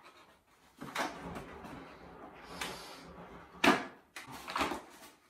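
Flour being measured out with a small metal measuring cup from a plastic bag over a steel mixing bowl: rustling and scraping, then a sharp metallic clank about two-thirds of the way through as the cup is set down, and a lighter knock just after.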